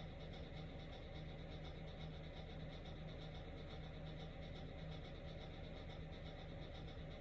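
Quiet steady room tone: a low hum under a faint, fast-pulsing high-pitched buzz.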